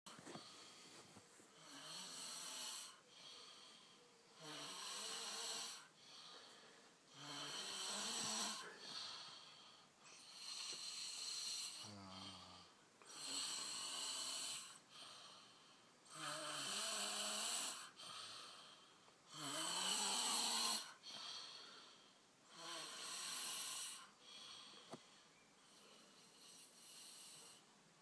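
Two people snoring in their sleep, one snore about every three seconds. The snores are breathy, and some carry a low buzzing tone.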